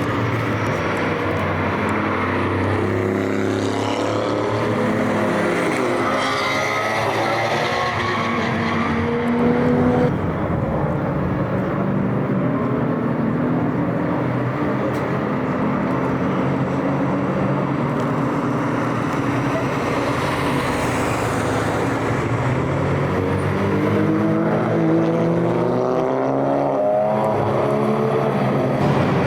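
Race car engines going past one after another, their pitch rising and falling as they brake, shift and accelerate. Two cars sweep loudly past, one a few seconds in and another near the end.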